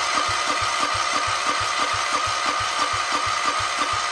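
Wheel Horse C161 lawn tractor engine turned over by its electric starter without catching: a steady starter whine with an even chugging of compression strokes about five times a second. The fuel line is pulled off to test the fuel pump, and no fuel comes out, a sign of a clogged line or filter.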